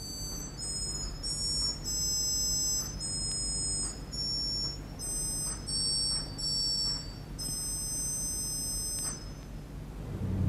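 Passau Cathedral organ playing a run of about ten very high, pure piping notes, each held for half a second to a second, with a longer note near the end. These are its highest pipes, sounding near the upper limit of human hearing. A faint low steady hum runs underneath.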